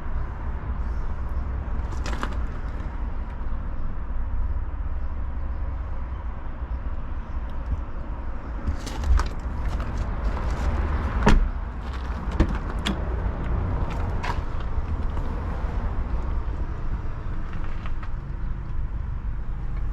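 A car idling with a steady low rumble, with a few clicks and knocks from the cabin, the loudest about eleven seconds in.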